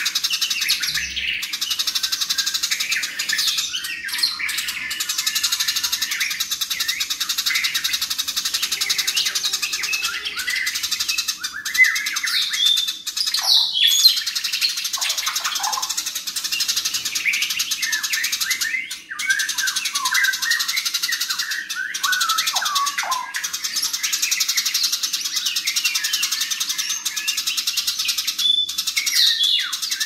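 Eurasian tree sparrows fighting, giving a fast, dense, unbroken chatter of high chirps and twitters. The run pauses only briefly about nineteen seconds in.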